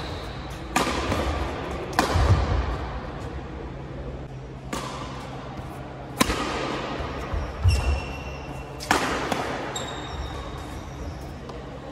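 Badminton rally: rackets striking the shuttlecock in sharp cracks every second or two, each ringing out in the large hall, with low thuds of feet landing and a couple of short high shoe squeaks on the court.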